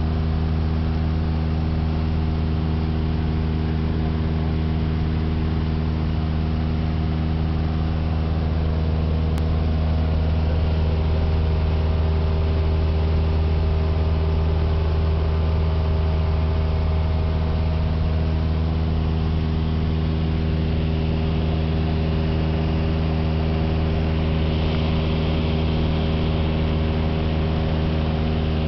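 A high-wing light aircraft's piston engine and propeller holding a steady drone in flight, heard inside the cabin: a deep, even hum with a layer of airflow hiss.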